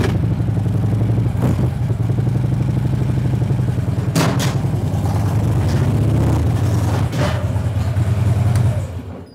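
Harley-Davidson touring motorcycle's V-twin engine running at low revs as the bike is ridden up onto the lift table and into the wheel chock, with a few clunks along the way. The engine shuts off near the end.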